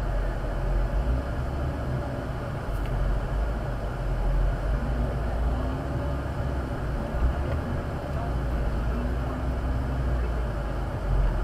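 Off-road vehicle's engine running at low revs, a steady low rumble, heard from inside the cab while the vehicle creeps slowly over rock.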